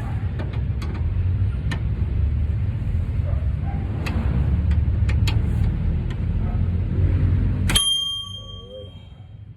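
A steady low rumble, then near the end a single sharp metallic clink that rings on briefly, after which the rumble drops away.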